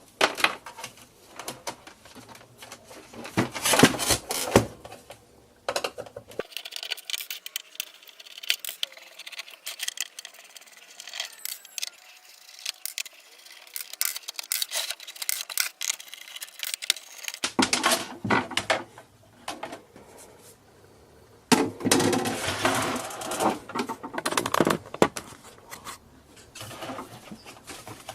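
Irregular clicks, taps and clattering of small parts and tools being handled as a clock radio cassette player is taken apart, with busier stretches of rattling about four seconds in and again about twenty-two seconds in.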